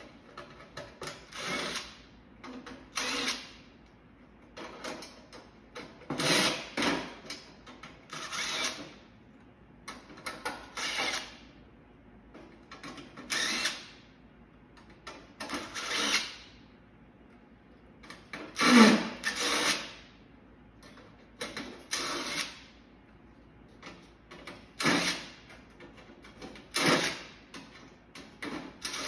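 Power drill run in short bursts, about fifteen times, each under a second and one to three seconds apart, while parts are taken off an air-conditioning unit.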